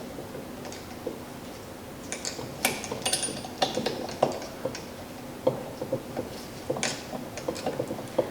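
Scattered light metallic clicks and clinks of hand tools against steel parts as a stiff spring is pressed down and a part is worked into place in a tractor assembly.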